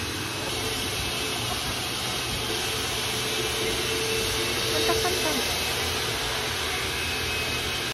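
Steady hiss of high-pressure washer spray in a wash bay, with a low hum underneath, swelling slightly about five seconds in.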